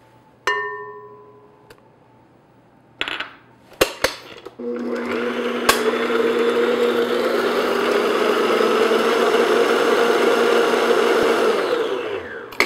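Electric stand mixer running steadily at speed, its beater working an egg into creamed butter and sugar in a glass bowl, then winding down near the end. Before it starts there is a single ringing clink about half a second in and a few sharp clicks.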